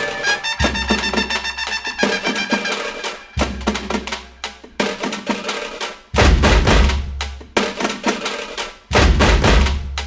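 Background music with drums and percussion over a melodic instrument, with heavy bass hits about six and nine seconds in.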